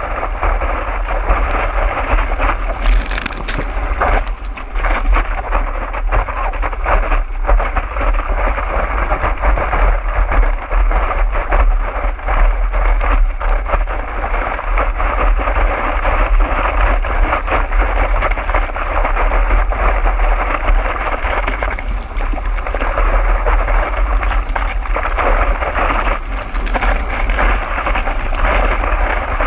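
Water rushing and splashing past a surfboard riding a wave, with steady wind buffeting the board-mounted camera's microphone as a deep rumble. Brief louder splashes come about three seconds in and again near the end.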